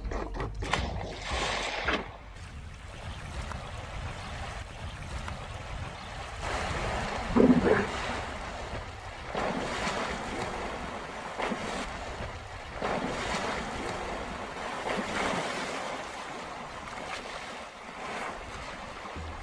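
Water splashing and churning as an antelope and wild dogs thrash through a river, with wind buffeting the microphone. A short, loud call sounds over it about seven and a half seconds in.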